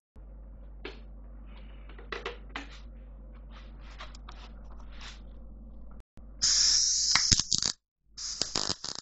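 A few soft handling clicks over a low hum, then a MIG welding arc crackling on steel in two short bursts of about a second each, the second starting near the end.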